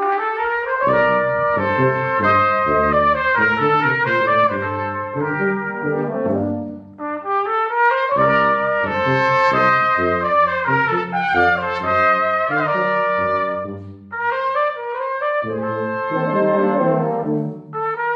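Brass quintet of two trumpets, French horn, trombone and tuba playing a tango. Sustained melody lines ride over short, detached bass notes, in phrases that break off briefly about seven and fourteen seconds in.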